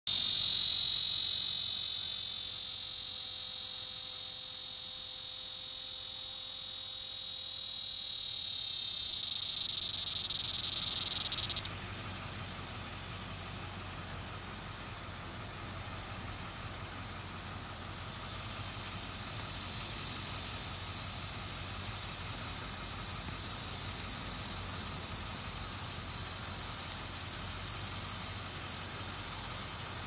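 A male Tibicen auriferus cicada gives its loud, steady, high buzzing call, which cuts off suddenly about twelve seconds in. A much fainter steady hiss remains afterwards.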